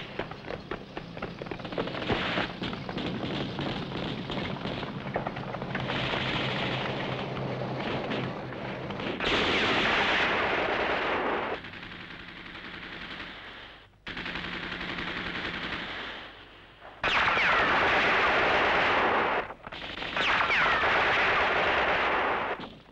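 Film-soundtrack machine-gun and rifle fire: rapid, dense shooting over a steady low hum for the first half, then several long sustained bursts separated by short breaks.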